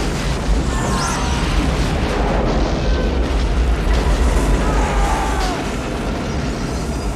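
Film sound effects of a ship blowing up in a chain of explosions: a loud, continuous blasting rumble with a heavy low end, with music mixed in underneath.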